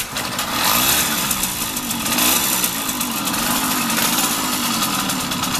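ZIF-77 moped's freshly rebuilt two-stroke engine catching and running, revved up and down several times. It has a new piston and is still being run in, so it does not pull hard yet.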